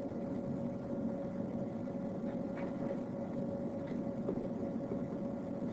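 A steady low hum with a faint steady tone through it, with a few faint soft taps in the middle.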